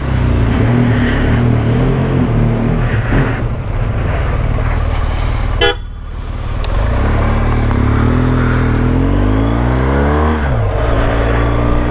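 BMW R1200GS flat-twin motorcycle engine running under way, with wind and road noise; in the second half its pitch climbs steadily for about three seconds as it accelerates, then drops sharply at a gear change.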